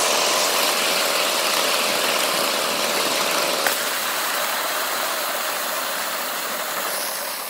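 5-inch gauge Sweet Pea live-steam locomotive running along the track: a steady rushing hiss of steam and running noise that fades slightly towards the end, with one light click about three and a half seconds in.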